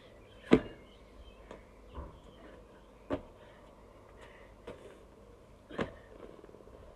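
A child's feet landing and stepping on block paving during a workout: a handful of separate thuds about a second apart, the loudest about half a second in.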